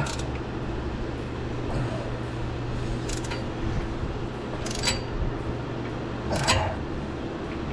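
A wrench clinking against a seal puller tool threaded into a transmission shift shaft seal: three short metallic clinks, about three, five and six and a half seconds in, over a steady low hum.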